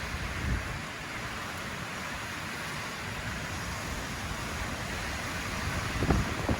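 Hurricane wind and rain, a steady rushing noise, with gusts buffeting the microphone about half a second in and again near the end.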